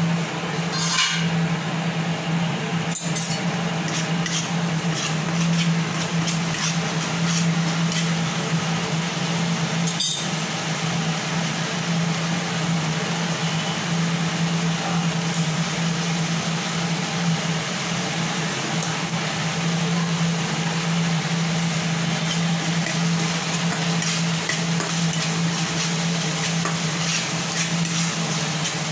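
Masala gravy sizzling as it fries in oil in a non-stick pan, over a steady low hum, with a few sharp clinks and scrapes of a metal spatula against the pan.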